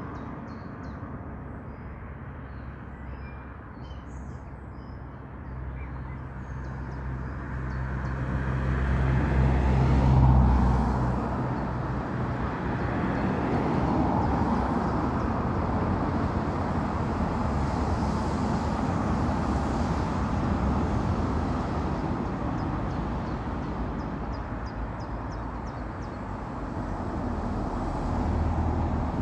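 Class 37 diesel locomotive's English Electric V12 engine throbbing as it approaches under load, growing loud about ten seconds in and then running on as a steady rumble. Birds chirp at the start and again near the end.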